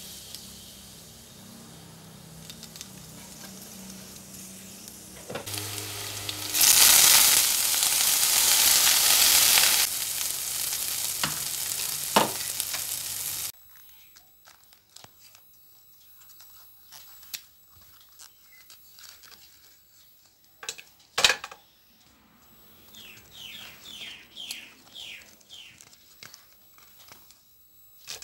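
Hot oil sizzling in a non-stick wok. It swells sharply about five seconds in as something goes into the pan, stays loud for several seconds, then cuts off suddenly. The rest is much quieter: faint clicks and rustles of banana-flower bracts being peeled over a steel bowl, with one sharp click.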